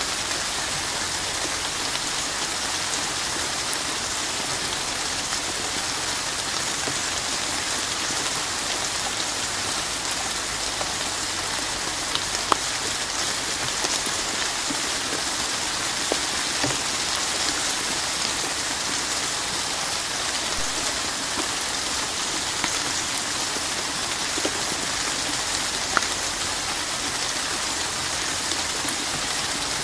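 Steady rain falling in an even, dense hiss, with a few sharper, louder drop hits now and then.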